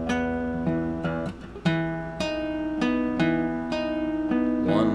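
Fingerpicked guitar in drop D with a partial capo on the second fret. The thumb picks a bass note on beats 1, 4 and 7 of each eight-note measure while two fingers pick the higher strings, and the notes ring over one another.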